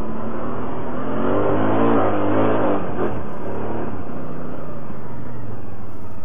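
ATV engine running steadily under way, its pitch wavering up and down for a couple of seconds near the middle as the throttle changes.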